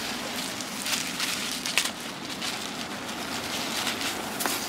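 Loose small granules rustling and pattering as they are scooped by the handful out of a car seat and footwell, with scattered sharp ticks of grains landing.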